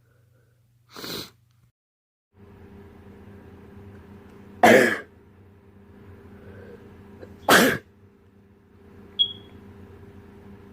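A person sneezing from allergies: a softer sneeze about a second in, then two loud sneezes about three seconds apart over a steady hum, and a brief sharp sound near the end.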